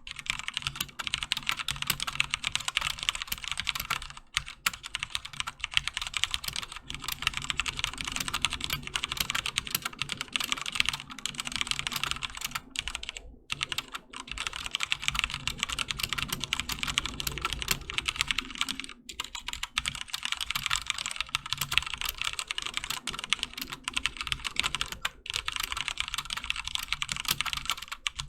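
Continuous fast typing on a HyperX Alloy FPS Pro mechanical keyboard with Cherry MX Red linear switches: a dense run of key clacks, broken by a few brief pauses.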